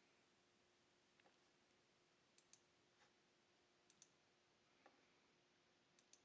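Faint computer mouse clicks over near silence: single clicks and quick double-clicks, about one every second or so, with a faint steady hum under them.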